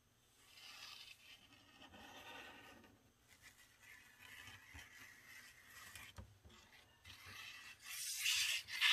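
Squeeze bottle of glitter glue being drawn along paper edges, the nozzle faintly scraping the paper. Near the end the bottle sputters loudly as air spits out with the glue, a terrible noise.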